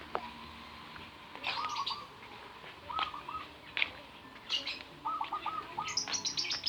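Several birds chirping and calling: short bursts of quick repeated notes, mixed with higher, sharper chirps, and a fast run of high chirps near the end.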